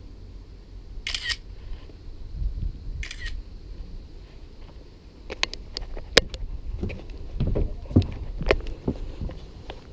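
Smartphone camera shutter sound played twice, about two seconds apart, as photos are taken. It is followed by a run of sharp clicks and knocks.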